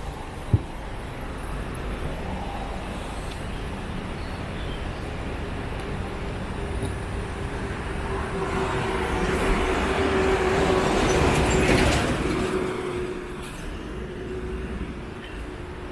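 Street traffic with a motor vehicle passing close: the noise swells from about eight seconds in to a peak near twelve and fades soon after, with a steady hum running through it. A single sharp click about half a second in.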